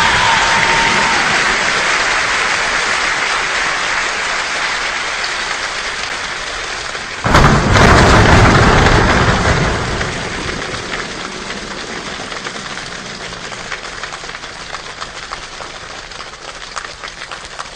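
A choir's body percussion imitating a rainstorm: a dense hiss of rain that slowly fades. About seven seconds in, a sudden louder rumble of thunder comes and dies away over a couple of seconds. Near the end the rain thins into separate taps like falling drops.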